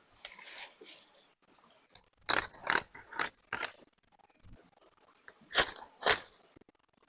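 Footsteps crunching, a few quick steps about half a second apart, then two more near the end.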